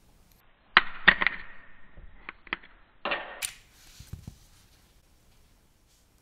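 Hard plastic LEGO minifigure parts clicking and tapping as they are handled, a hat pulled off and a headpiece fitted. There are a few sharp clicks about a second in, another cluster near three seconds with a brief scraping hiss, then fainter taps.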